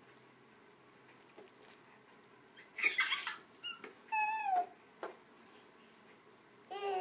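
A baby's short, high-pitched happy squeals: a breathy one about three seconds in, a falling one a second later, and another near the end.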